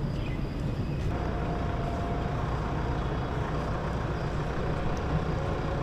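Steady low rumble of outdoor background noise, with a faint thin tone for a second or so starting about a second in.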